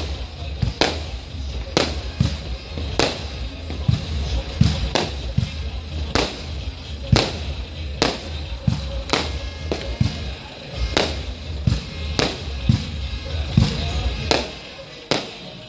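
Aerial fireworks shells bursting with sharp bangs about once a second, over music with a steady deep bass that stops near the end.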